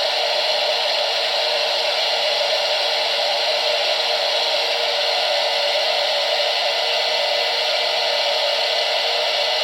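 Hello Kitty hot-air popcorn maker running, its fan blowing hot air with a steady whirring hiss and a constant hum. No kernels are popping.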